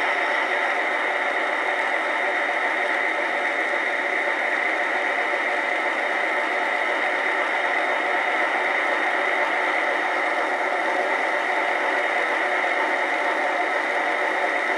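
Steam locomotive sound from the QSI Titan decoder, played through the speaker of a Bachmann C-19 large-scale model as it runs on the bench: a steady hiss with no distinct beats.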